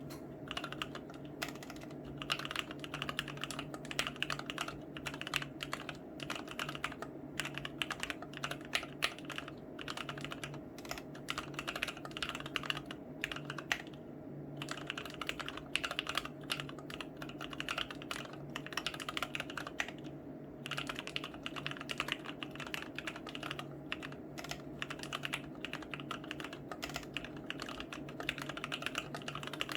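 Typing on a Womier K66 mechanical keyboard with Gateron Yellow linear switches in milky housings and XDA-profile keycaps: a rapid, continuous run of keystrokes with short pauses about 14 and 20 seconds in. A steady low hum lies underneath.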